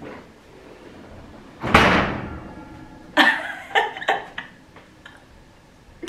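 An oven door shut with a single loud thud about two seconds in. A woman's laughter follows about a second later.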